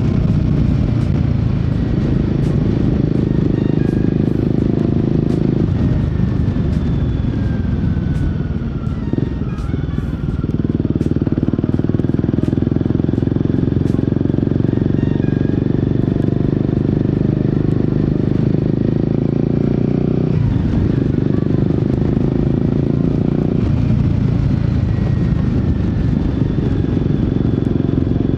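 Royal Enfield Guerrilla 450's single-cylinder engine and exhaust running under way, heard from on the bike. It holds a steady pull with a few changes of throttle, falls off about nine seconds in and picks up again about a second later, then dips briefly around twenty seconds.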